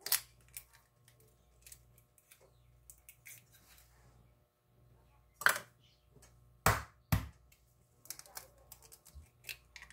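Raw eggs being cracked open: sharp taps of a metal spoon against the eggshell and small clicks of shell. Three louder knocks come in the middle.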